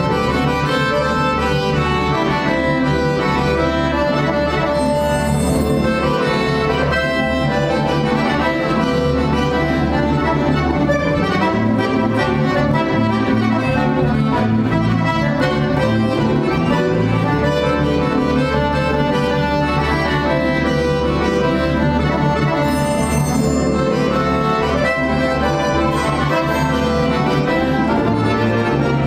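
Bayan (Russian chromatic button accordion) playing a concerto solo, accompanied by an orchestra of Russian folk instruments; dense, continuous music with sustained chords and moving melodic lines.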